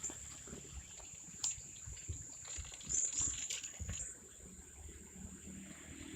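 Quiet, irregular rustles and snaps of gotu kola (pegagan gajah) leaves being plucked by hand, over a steady high thin whine.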